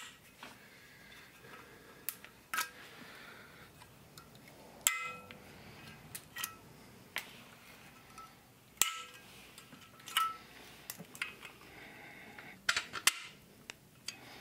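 Plastic zip ties being snipped off with cutters: about ten sharp, irregular snaps, a few with a short metallic ring.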